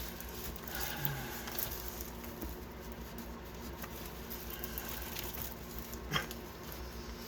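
Soft rustling as a sticky diamond-painting canvas is handled, with one sharp tap about six seconds in.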